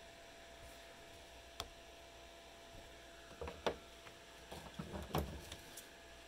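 Crayon and stiff brown paper handled on a tabletop: a few soft taps and short scrapes, loudest about three and a half seconds in and again around five seconds, over a faint steady hum.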